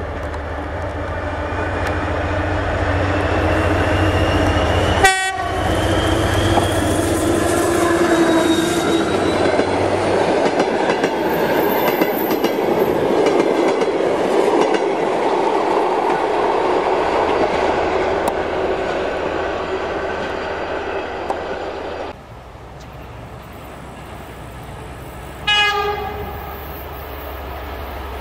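Diesel passenger locomotives running hard under power, with a steady engine rumble and the clatter of passing carriage wheels. A short horn blast comes about five seconds in. After a sudden drop in level, a second diesel, a TEP70, runs more quietly and gives a short horn blast near the end.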